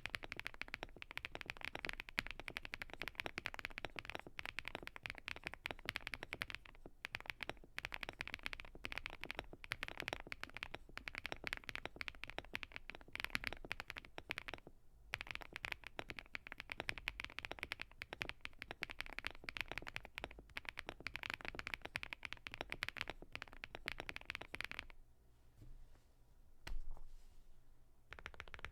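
Fast, continuous typing on a PETBRICK 65 mechanical keyboard (leaf-spring mount, POM plate, thick OEM PBT keycaps, Dry Studio Crystal Pink switches), a dense patter of keystrokes with brief breaks. Near the end the typing pauses, broken by a single louder knock.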